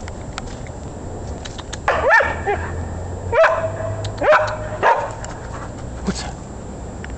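Dog barking at a squirrel, about five short sharp barks starting about two seconds in, the first rising in pitch.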